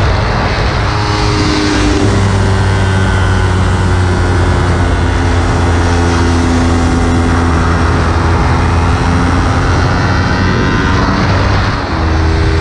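Kawasaki Ninja 300's parallel-twin engine running hard at track speed, heard from on board with wind noise. Its pitch steps about two seconds in, and near the end the sound dips briefly before the engine note changes.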